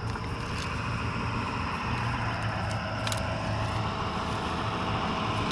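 A road vehicle's engine running steadily, a low hum that grows slightly louder toward the end.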